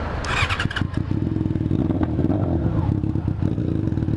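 Yamaha FZ6 inline-four motorcycle engine starting again after stalling: a short high burst about half a second in as it catches, then idling with an even pulse. The bike keeps stalling and has been making a strange noise, which the rider says is acting up again.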